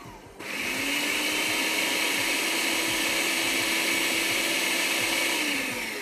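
Electric blender grinding basil pesto: the motor winds down from a short pulse, starts again about half a second in, runs steadily with a hum, and winds down near the end.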